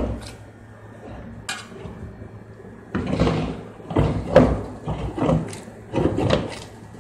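Metal pot of eggplant and tomato sauce being shaken to mix it, giving repeated clanking knocks, roughly two a second, from about three seconds in, after a quieter start with a single click.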